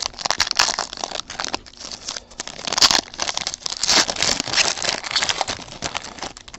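Foil trading-card pack wrapper crinkling and crackling as it is handled and torn open by hand: a dense, continuous run of fine crackles.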